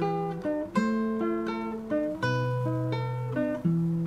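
Acoustic guitar playing the slow introduction to a hymn, with a new chord struck about every second and a half and single notes ringing between.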